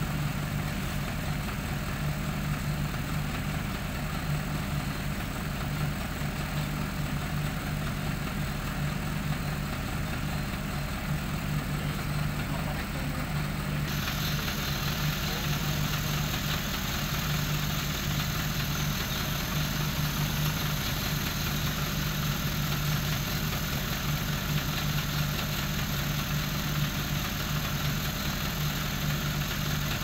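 Steady low mechanical hum with a hiss over it; the hiss gets brighter about halfway through.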